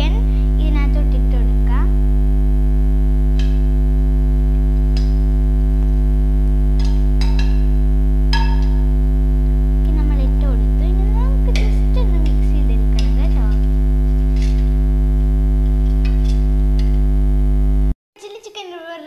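Loud, steady electrical mains hum with a stack of overtones, with a few faint clicks beneath it; the hum cuts off suddenly about 18 seconds in.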